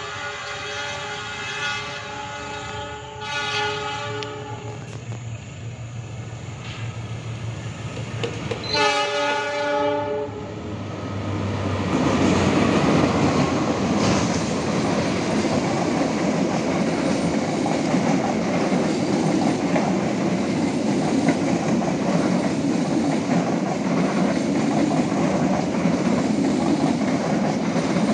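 A CC206 diesel-electric locomotive sounds its horn in a long blast, then gives a shorter blast about nine seconds in as it approaches. From about twelve seconds in, the train passes close by, with a loud, steady rumble of the locomotive and the wheels on the rails.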